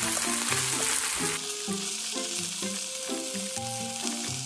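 Pork and chunks of Japanese long green onion sizzling in sesame oil in a frying pan as they are stirred with chopsticks; the sizzle drops a little about a second and a half in. Light background music with a simple melody plays over it.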